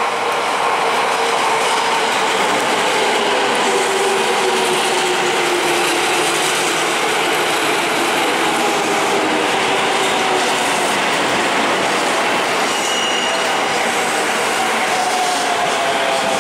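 JR West 223 series electric train running into the platform and braking: a loud, steady rumble of wheels on rail with the motor whine gradually falling in pitch as it slows, and a brief high tone about three-quarters of the way through.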